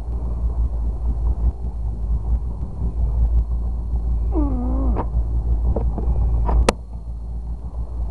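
Steady low rumble of a fishing boat under way. About halfway through there is a short pitched call that falls and then holds for about half a second. It is followed by a few sharp knocks, the last one the sharpest, and the rumble drops a little after it.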